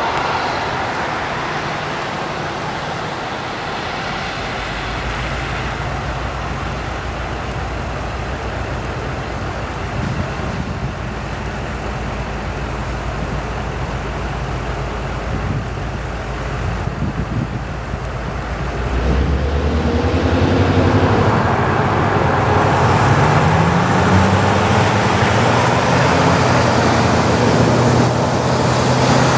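Diesel locomotive drawing slowly closer, its engine running with a low, steady note. About two-thirds of the way in the engine gets louder and its pitch climbs as it is throttled up.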